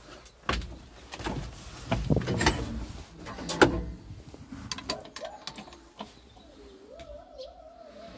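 Clunks and clicks from the levers of a Belarus MTZ-80 tractor being worked in the cab, the engine not yet running, with one sharper knock about three and a half seconds in. A wavering tone rises and falls through the second half.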